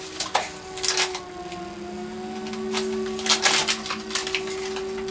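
Plastic packaging and paper crinkling and rustling as they are handled, in bursts of short crackles with a few light clicks.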